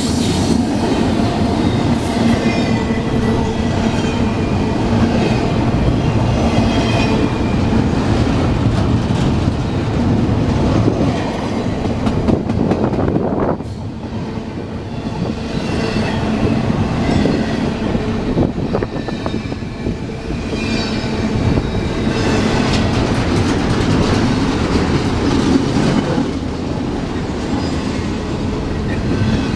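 A train's cars rolling steadily past, wheels clattering on the rails, with faint, wavering high-pitched flange squeal. There is a brief dip in loudness about halfway through.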